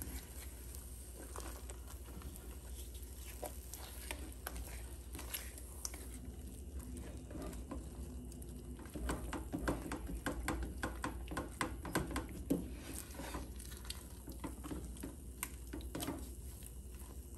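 Silicone spatula stirring and pressing a thick, sticky cornflour halwa mixture in a stainless steel pot: irregular soft wet smacks and scrapes, busiest about halfway through, over a low steady hum.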